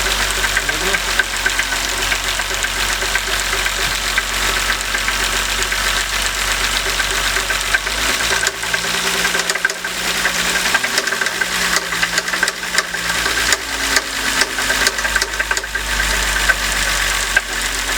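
BMW M50 straight-six engine running with a rapid, continuous ticking knock, which the owner takes for the VANOS variable valve timing unit.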